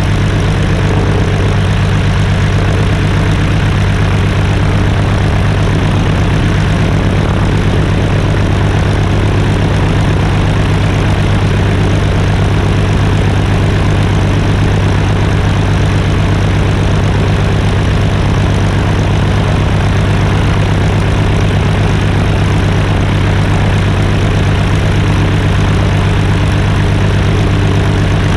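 Fairchild PT-26 trainer's piston engine idling steadily on the ground with its propeller turning, a loud, even low drone.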